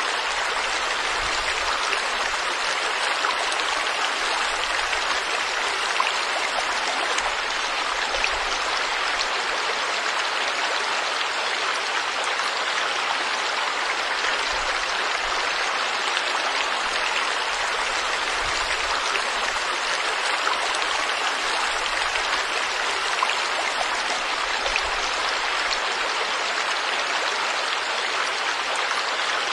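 Stream water flowing over rocks: a steady, even rushing with a fine splashing texture.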